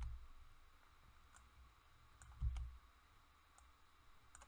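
Faint, scattered clicks of a computer mouse and keyboard as on-screen pieces are selected and deleted. Two soft low thumps, one at the start and one about halfway through, are the loudest sounds.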